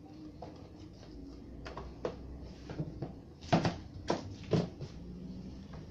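A series of short plastic knocks and clicks from hands handling the back of an LED TV and its cable plugs, with the loudest three or four coming about three and a half to four and a half seconds in.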